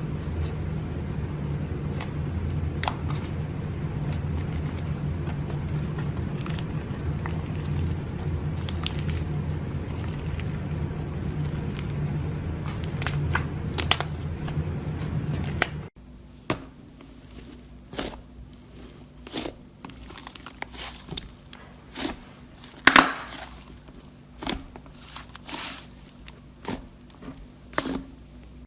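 A steady low hum with a few faint clicks. It cuts off abruptly about halfway, and crisp crackling and crunching follows: a string of sharp separate clicks as crunchy ASMR material is pressed and broken, with the loudest crack a bit past two-thirds of the way in.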